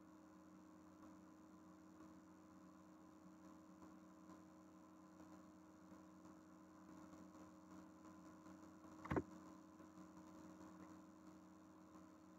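Near silence with a steady low electrical hum on the recording, broken once by a single short click about nine seconds in.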